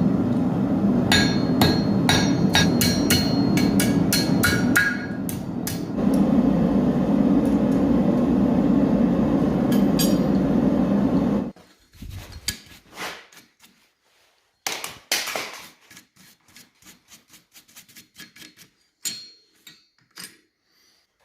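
Hammer blows on steel at an anvil, a quick run of ringing strikes over a steady low hum. The hum cuts off suddenly about halfway, and a few lighter knocks and clinks of metal follow.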